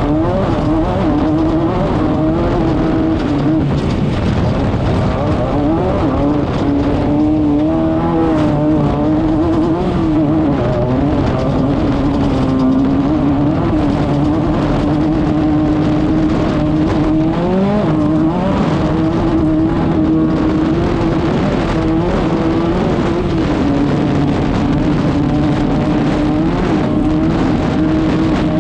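Class 5/1600 off-road race car's air-cooled 1600 cc VW flat-four engine running hard at steady high revs. Its pitch wavers and dips briefly, then climbs back, about a fifth of the way in and again a little past halfway.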